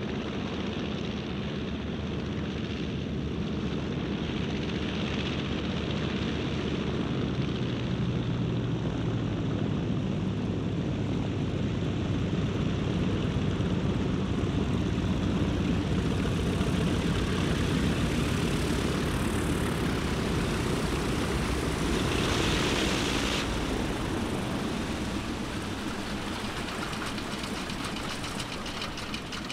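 Engine drone with a steady rushing noise, growing louder toward the middle and fading toward the end.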